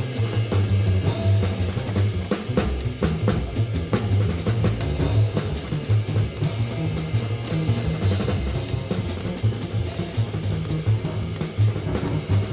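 Live jazz performance with the drum kit to the fore: snare, cymbals and bass drum playing busily under the band. The music is a live FM radio broadcast taped off the air onto cassette.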